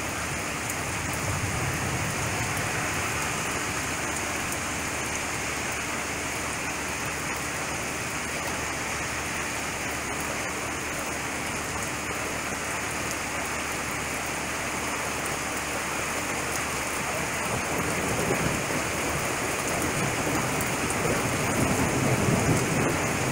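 Steady rain in a thunderstorm, a dense even hiss. In the last five seconds or so it grows louder, with a low rumble of thunder.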